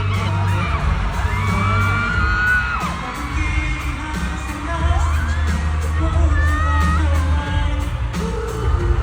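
K-pop song played loud over a concert sound system, with a heavy bass line, a steady beat and singing over it, and a crowd screaming along.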